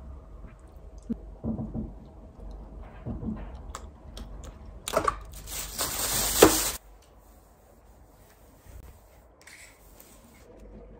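Clear plastic bag crinkling and rustling as it is handled, loudest for about two seconds near the middle and then stopping abruptly, with a few soft knocks of containers on the table before it.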